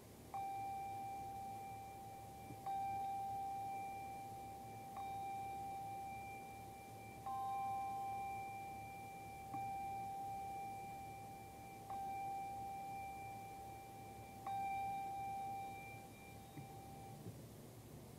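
A pair of handbells rung slowly: about seven strokes a couple of seconds apart, each ringing on in a clear tone until the next, with a higher note on a couple of strokes. The last stroke dies away near the end.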